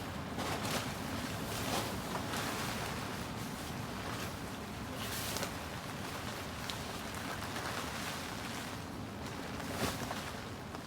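Heavy rain and strong gusting wind, a steady rushing noise broken by a few sudden louder gusts every couple of seconds.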